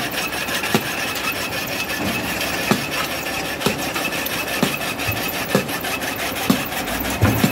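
Conveyor belt running under an aggregate bin at a concrete batching plant, carrying sand: a steady gritty scraping rattle with a low knock about once a second.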